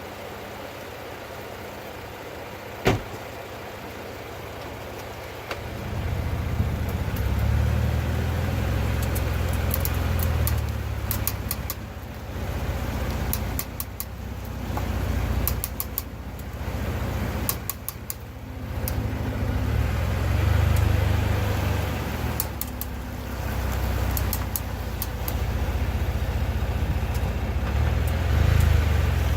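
2017 Ford Fusion's front wheel hub clicking in irregular runs of sharp clicks over the low rumble of the car driving, with one louder single click about three seconds in. The clicking is the sign of a failing front driver's-side wheel hub.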